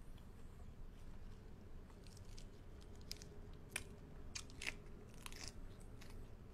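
Close-up mouth sounds of a person chewing raw tiger prawn and fresh vegetables, with a run of sharp, crisp crunches starting about two seconds in.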